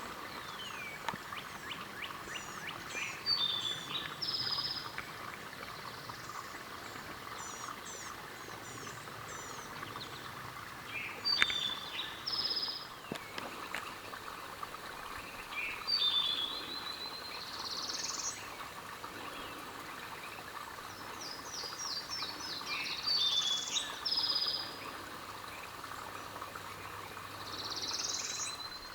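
Several songbirds singing in short phrases of high chirps and rising whistles, about every few seconds, over a steady background chorus.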